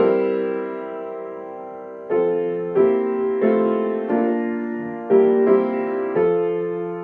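Piano playing slow, gentle chords. Each chord is struck and left to fade; the first rings for about two seconds before a run of chords follows at a walking pace.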